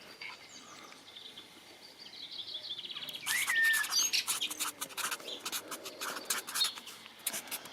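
Small garden birds twittering and chirping: a faint high trill of repeated notes at first, then from about three seconds in a busy run of quick chirps and short gliding calls.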